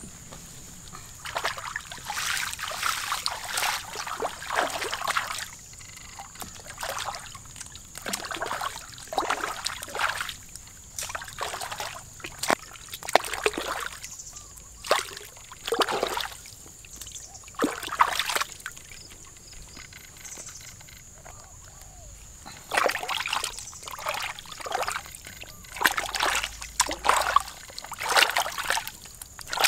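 Water splashing and sloshing in short, irregular bursts, with brief pauses between them.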